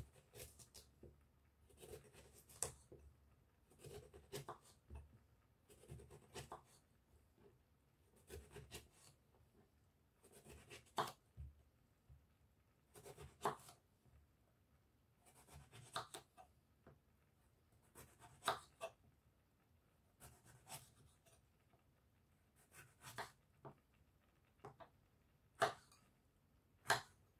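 Kitchen knife slicing through an aubergine onto a wooden chopping board: soft cutting scrapes and light taps in short clusters about every two seconds.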